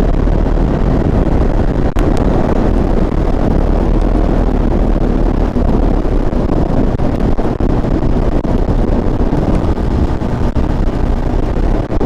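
Steady wind rush over a helmet-mounted camera at highway speed, with the Yamaha LC135's single-cylinder four-stroke engine running underneath.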